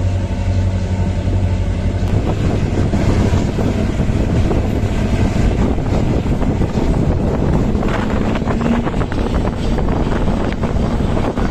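Diesel multiple unit (DMU) train running just after leaving a station: a low diesel engine tone that climbs slowly as the train gathers speed, over rumbling wheels on the track, with wind buffeting the microphone.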